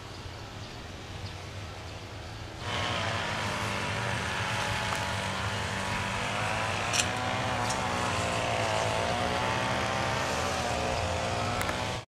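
A motor running steadily with a droning hum, stepping up suddenly in level about two and a half seconds in.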